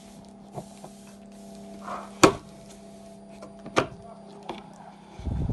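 Incubator's small cooling fan running with a steady hum, broken by several sharp knocks and clicks, the loudest about two seconds in, and a low thumping near the end.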